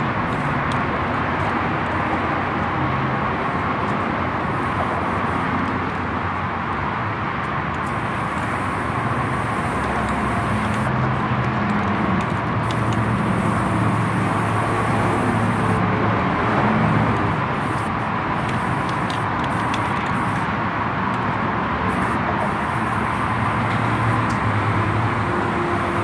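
Steady mechanical running noise with a constant hiss and a low hum.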